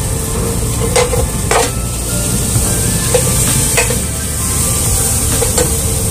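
Onion, ginger and tomato sautéing in a hot pan with a steady sizzle, while a utensil stirs them and knocks against the pan a few times.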